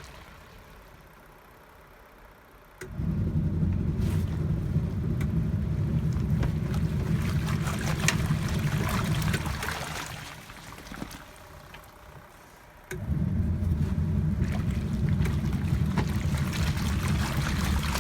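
Hisense twin-tub washing machine's wash motor running and churning water and clothes, in the stop-start pattern of a wash cycle. It is quiet for the first three seconds, runs for about seven seconds, pauses for about three, then starts again.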